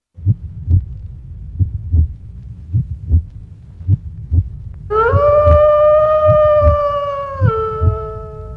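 Heartbeat sound effect, a low double thump about once a second. About halfway through, a long, loud howl comes in over it, holds one pitch, then drops to a lower note.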